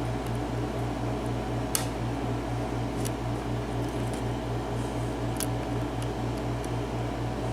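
Lock pick working the pin stack of a 5-pin Ezcurra cylinder lock, giving a few sharp clicks as the pins are lifted during single-pin picking. A steady low hum that pulses several times a second runs underneath.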